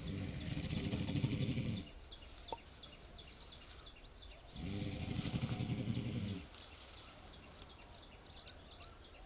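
A wild Sri Lankan elephant rumbling twice, each a low, rough sound about two seconds long: one at the start and one about halfway through. A bird repeats a quick four-note chirp every few seconds over them.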